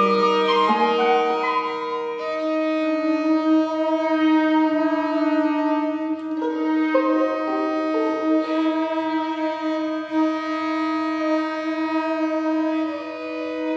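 Contemporary chamber ensemble of flute, bass clarinet, trombone, violin and viola playing long held notes that overlap, with single pitches shifting every few seconds.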